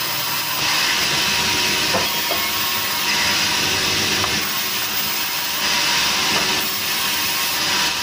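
Sawmill band saw cutting boards from a log slab: a loud hissing rasp of the blade in the wood. It swells and eases in stretches of a second or so as each board is pushed through, over the saw's steady running.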